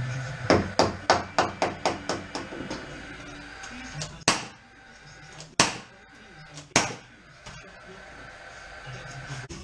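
Hammer nailing into timber stud framing: a quick run of about ten taps, about four a second, then three louder single blows a second or so apart.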